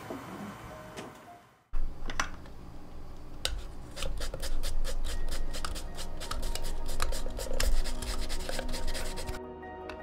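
Craft-knife blade and sandpaper scraping the surface of a cured resin 3D-printed bust in quick, rough strokes. They start about two seconds in and stop shortly before the end.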